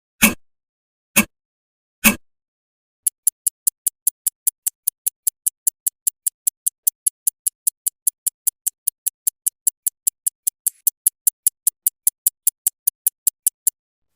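Clock ticking: a few sharp ticks about once a second, then from about three seconds in a different, faster and lighter high-pitched ticking, about four to five ticks a second.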